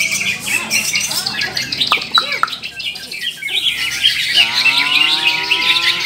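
Several caged green leafbirds (cucak ijo) singing at once, a dense run of rapid, overlapping trills and chattering phrases. A drawn-out, slowly rising call joins in over the last second and a half.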